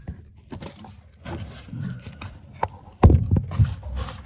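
Irregular knocks and taps on wood, with a louder thump about three seconds in.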